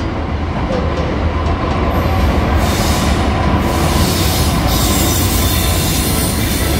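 British Rail Class 66 diesel-electric locomotive passing close by with its EMD two-stroke V12 engine running, hauling a train of box wagons. A steady low engine rumble grows slightly louder over the first couple of seconds. Wheel and rail noise joins about two and a half seconds in as the locomotive and wagons roll past.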